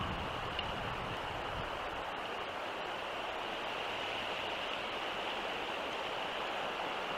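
Steady outdoor background hiss with no howling or other calls. Low wind rumble on the microphone dies away in the first two seconds.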